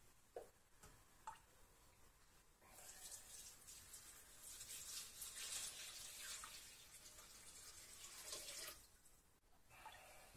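Hot broth poured from a measuring jug into the stainless-steel mixing bowl of a Monsieur Cuisine Connect food processor: a steady, faint splashing pour from about three seconds in until near the end, after a couple of light clicks.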